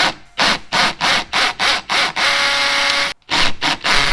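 DeWalt cordless drill boring through a plastic radiator cover. The trigger is pulsed in about eight short bursts, then held for about a second with a steady motor whine that stops abruptly, then pulsed a few more times near the end.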